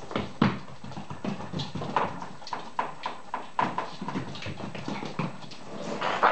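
Whippet puppies scampering and play-fighting on a hard floor: an irregular patter of paws and clicking claws with scuffles and small bumps, growing into a louder flurry near the end.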